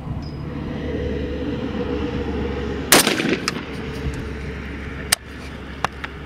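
A single loud AR-15 rifle shot about three seconds in, with a short echoing tail, followed by a few fainter sharp cracks.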